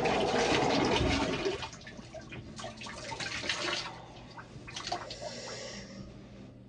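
Bathroom sink tap running hot water, shut off about a second and a half in; fainter scattered small sounds follow.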